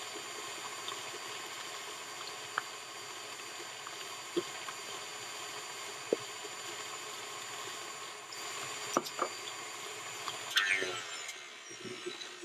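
Electric stand mixer running steadily as it beats mascarpone cream, with a few sharp clicks. About ten and a half seconds in it winds down, its whine falling, and stops.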